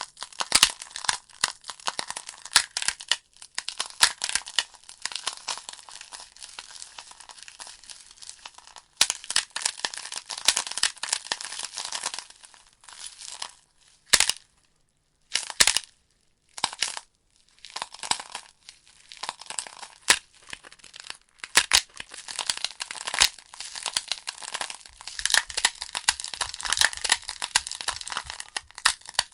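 Wood fire crackling: a dense run of irregular pops and snaps from burning logs. Near the middle it drops almost to silence for about three seconds, broken by a couple of single pops, then the crackling resumes.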